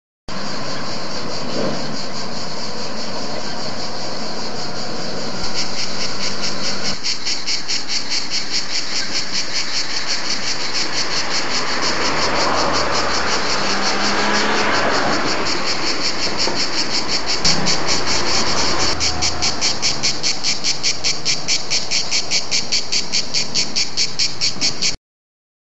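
Cicadas singing in a tree: a loud, high buzzing that becomes a fast, even pulsing of about five beats a second from about five seconds in.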